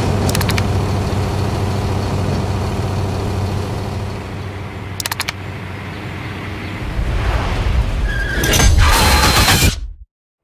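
Semi-truck running at highway speed, a steady engine drone with tyre and road noise, marked by two short sharp clicks. From about seven seconds a louder rushing noise builds to a peak, then cuts off abruptly into silence.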